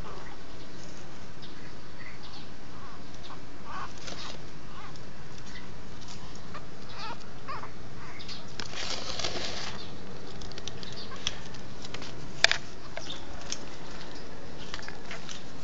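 Soft rustling and scattered light clicks over a steady background hiss, with a short rustling flurry about nine seconds in and one sharp click about twelve and a half seconds in.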